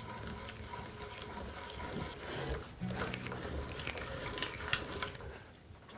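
Auger bit boring through hardwood by hand, the fibres crackling and creaking as chips are lifted out, with scattered sharp clicks.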